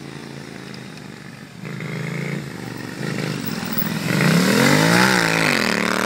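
Triumph motorcycle engines riding past close by. The sound builds in steps, and the loudest bike's engine note rises and then falls in pitch as it goes past near the end.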